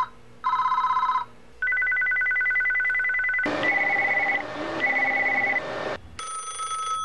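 Several different telephone ringers, one after another. Two short bursts of a fast warbling electronic ring come first, then a steady two-tone ring, then a pulsing ring, and near the end another ring with several tones.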